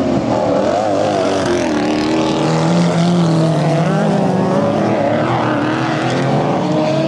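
Engines of several autocross race cars running hard together on a dirt track. Their pitches rise and fall as they accelerate and lift through a bend.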